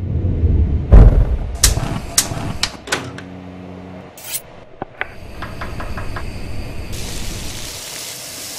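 A run of knocks and clanks, the heaviest a thump about a second in, then a quick string of ticks and a steady hiss that grows stronger near the end.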